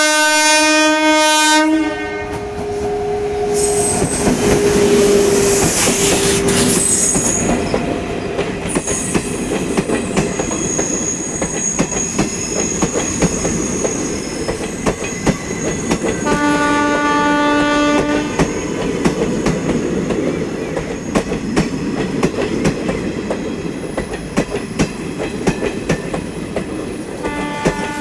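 Twin-tone horn of a WAP-7 electric locomotive blaring at the start, then the train running with wheels clattering over rail joints. The horn sounds again for about two seconds past the middle and starts once more near the end.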